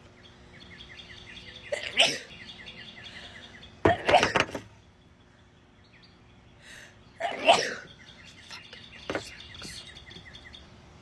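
A woman sneezing three times from hay fever, with a smaller outburst after the third. A bird chirps in quick, evenly spaced runs in the background.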